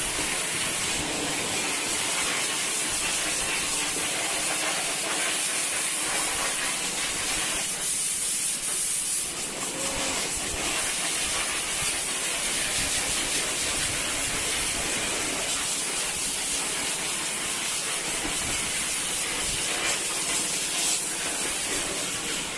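Steady hiss of water spraying from a hose onto the floor of a goat pen, easing briefly a little before halfway.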